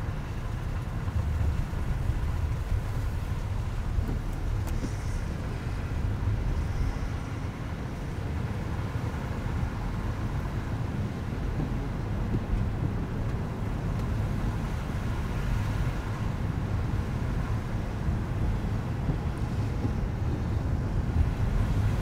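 A car driving on wet, slushy streets: a steady low rumble of tyres and engine.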